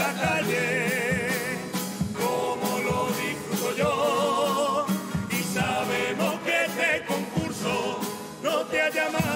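Carnival murga group's music: guitars and a steady beat under a wavering melody line with strong vibrato.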